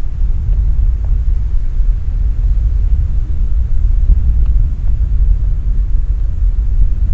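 Steady low rumble of ocean surf and wind on an open coral shoreline, with a few faint ticks.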